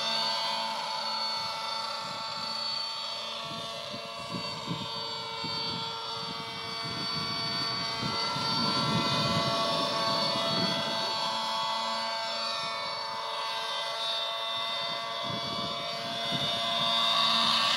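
Glow-fuel (nitro) engine of a radio-controlled model helicopter running steadily, its high buzzing pitch slowly rising and falling as the revs change.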